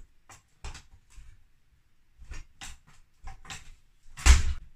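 Irregular knocks and scrapes of metal parts as the Honda QR50 engine is worked loose from its frame on the stand, ending in one loud, heavy clunk about four seconds in.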